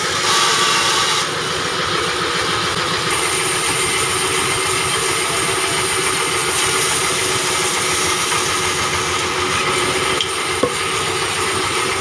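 Sawmill band saw running steadily, its blade cutting through a log.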